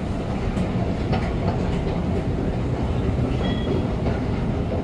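New York City Subway 7 train running along the track: a steady low rumble with scattered clicks of the wheels over rail joints. A brief high tone sounds about three and a half seconds in.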